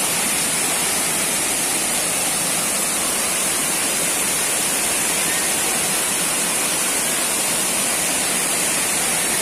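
Steady rush of water from waterfall cascades pouring over rock into a pool.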